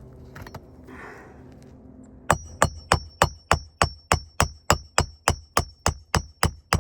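A hammer beating on a roof snake to work a shingle nail loose. It strikes about seventeen times in quick succession, nearly four blows a second, each with a short metallic ring, starting about two seconds in.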